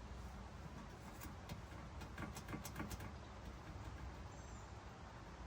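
Faint scattered clicks and light rustling from hands working on a Jeep's wiring, clustered in the first half, over a steady low rumble.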